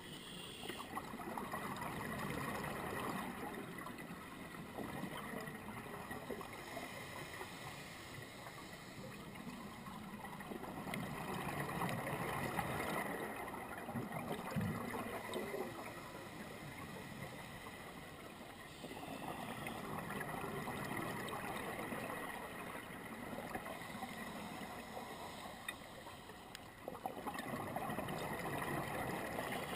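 Scuba divers' exhaled regulator bubbles heard underwater, a rushing bubble noise that swells and fades in slow breathing cycles every several seconds.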